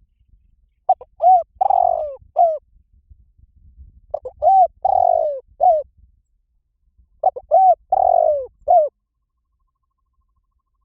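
Spotted dove singing its cooing phrase three times, about three seconds apart. Each phrase is a few quick coos, then a longer falling coo and one short closing coo.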